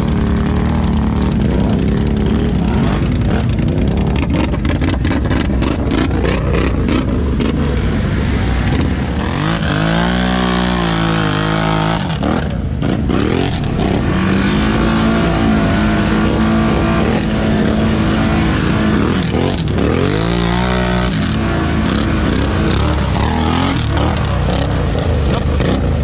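ATV engine running hard, its revs climbing and falling around ten seconds in and again around twenty seconds in, holding steady in between.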